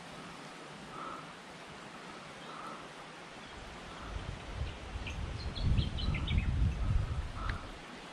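Outdoor river ambience: a shallow stream's steady hiss with a bird giving a short call every second and a half or so, and a quick run of high chirps about five seconds in. From about four seconds in, wind buffets the microphone in low, gusty rumbles that are the loudest sound.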